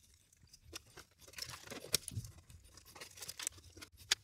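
Faint, scattered clicks and clatters of a Macintosh SE/30 being taken apart by hand: screws, a screwdriver and metal and plastic case parts being handled.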